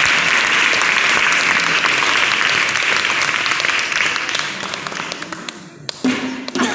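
Audience applause, dense clapping that dies away over a couple of seconds, followed by a single sharp knock near the end.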